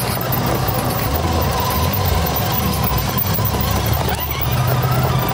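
Remote-controlled car driving over grass: a steady rumble of its motor and wheels, heard up close through the camera it carries.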